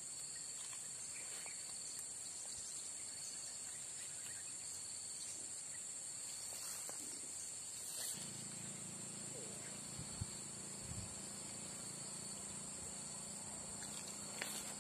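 Steady high-pitched insect chorus, shrilling without a break. About halfway through a low steady hum joins in, and there are a few faint clicks.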